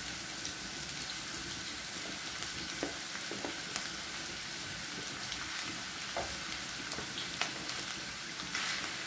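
Diced onions sizzling steadily in hot oil in a frying pan, with a few light clicks, as ground beef is added to the pan.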